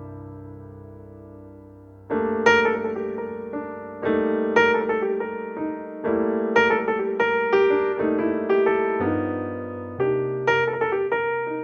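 Background piano music: a held chord fades out, then from about two seconds in new chords and melody notes are struck every second or so, each ringing and decaying.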